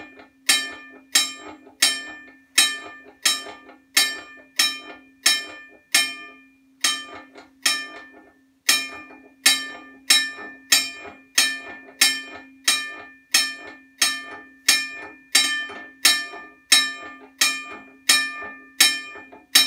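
Union Switch & Signal (US&S) teardrop electromechanical railroad crossing bell ringing. Its clapper strikes the gong a little under twice a second, and each stroke rings on over a steady hum. For about two seconds near the middle the strokes come weaker.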